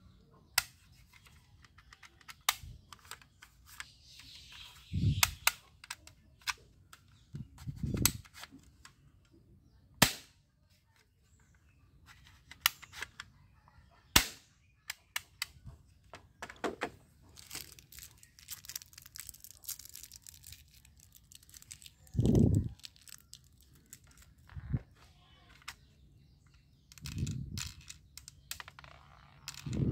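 Plastic toy guns being handled: scattered sharp clicks of plastic parts and several dull knocks on the table, with two louder snaps about ten and fourteen seconds in.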